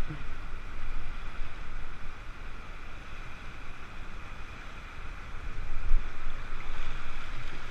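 Whitewater rapids rushing steadily past an inflatable raft, with an uneven low rumble of wind on the microphone that swells briefly about six seconds in.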